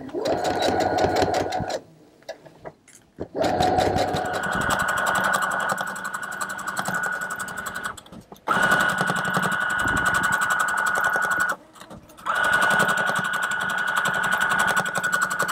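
Brother domestic sewing machine stitching a side seam through canvas fabric, running in four spells separated by short pauses.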